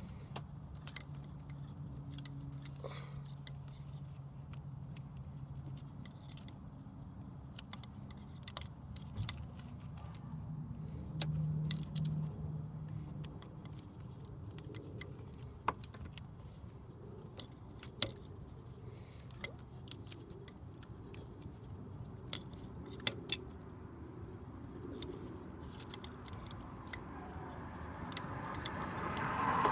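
Scattered light clicks and rattles of hands working on car wiring and a plug connector, over a low steady hum. A louder rushing noise swells near the end.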